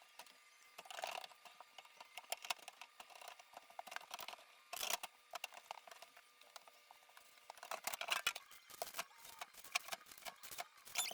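Scattered light clicks, taps and rustles of containers and plastic shelves being handled as a fridge is emptied and cleaned, with a few louder clusters of clatter.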